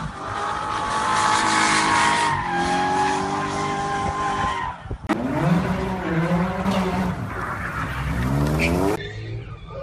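Car engine held at high revs during a burnout, tyres squealing. About five seconds in, an abrupt cut to a second car whose engine revs up and down in repeated sweeps. Near the end it cuts to much quieter sound.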